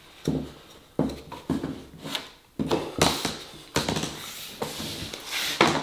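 Luxury vinyl plank being worked into place by hand: a series of irregular dull knocks and taps, about nine in six seconds, as the plank is pushed and pressed against the floor.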